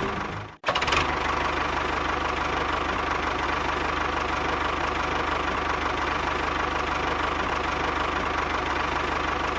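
Small motor running steadily with a fast, even rattle. It cuts out abruptly about half a second in and starts again straight away.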